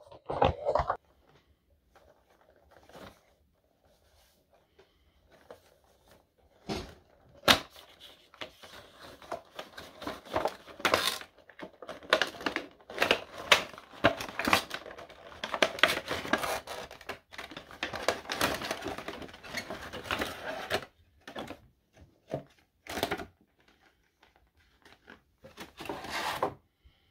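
A cardboard Funko Pop box being opened and the vinyl figure worked out of its plastic insert: crinkling plastic, rustling and clicking cardboard. It starts with a few isolated clicks, gets busy and continuous through the middle, and thins out to a few clicks near the end.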